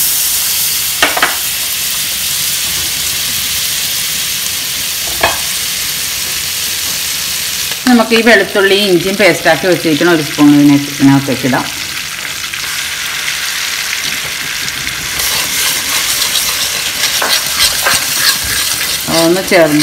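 Butter sizzling in a hot metal kadai, a steady hiss. About halfway through a paste goes into the pan, and the sizzle grows stronger as it is stirred with a metal spoon.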